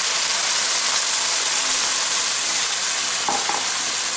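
Cream poured into a hot frying pan of sun-dried tomatoes and garlic in butter, sizzling with a steady hiss.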